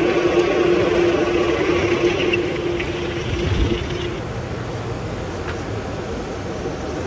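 Electric motor and gear whine of a radio-controlled construction model: a steady mid-pitched tone over a rough mechanical noise. The tone stops about four seconds in, and a lower, quieter hum carries on.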